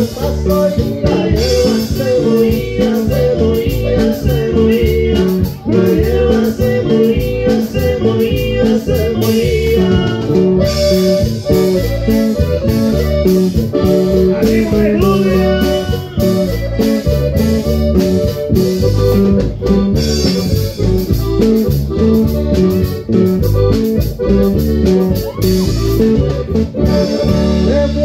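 Live norteño band playing: button accordion, guitar, electric bass and drum kit together, with a steady beat.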